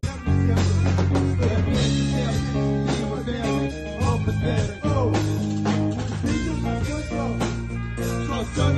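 A rock band playing live: a male singer over electric guitar, bass guitar and drum kit, with long held bass notes under a steady drum beat.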